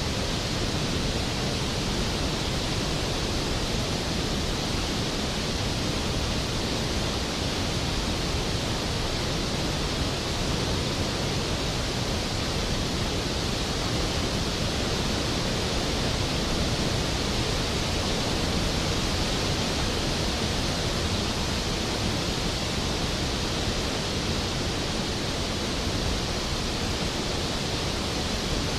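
Skógafoss, a large waterfall, falling: a steady, powerful rush of water that does not change.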